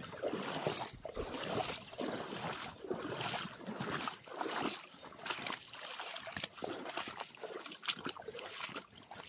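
Footsteps wading through a shallow, stony stream, each step splashing and swishing the water at an uneven pace.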